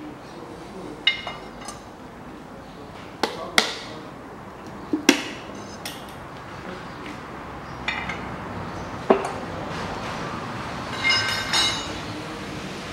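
Steel pry bar knocking and clinking against the cylinder head of a Daewoo Nexia 1.5 engine while the stuck head is worked loose from the block. About eight sharp metallic knocks, some ringing briefly, are spread through the stretch, with a ringing clatter near the end.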